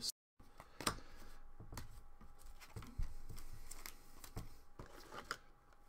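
Trading cards being handled and sorted by hand: cards sliding over one another with scattered soft clicks and taps, over a faint steady hum.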